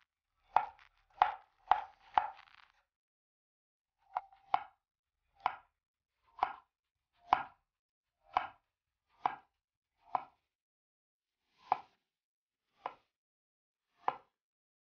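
Chef's knife slicing a carrot into rounds on a wooden cutting board, each slice ending in a crisp knock of the blade on the board. Four quick cuts, a short pause, then a steady cut about once a second.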